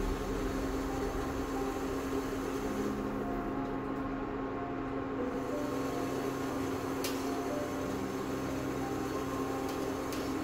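Induction cooktop running under a pot of water: a steady electrical hum with a fan-like whir. A couple of light clicks come from dumplings being set into the stainless steel steamer basket.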